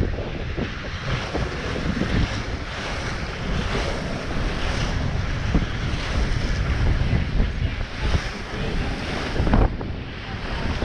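Wind buffeting the microphone over the rush and splash of water along the hull of a sailing yacht under way in choppy water. A single sharp knock about nine and a half seconds in.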